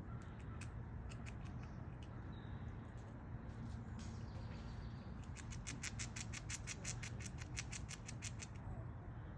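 Squirrel gnawing at a nut shell with its teeth: scattered sharp clicks, then a fast run of rasping clicks, about nine a second, through the second half.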